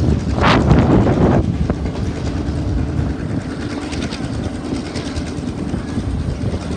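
Passenger excursion train running along the track, a steady rumble with rail noise, swelling louder for about a second near the start.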